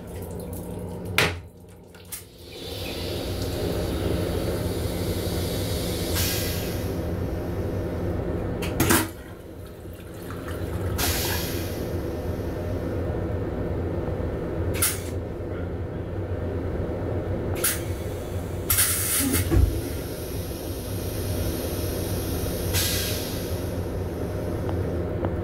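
Steady hum and rumble inside an M7 railcar's restroom, with a few short knocks and clatters along the way.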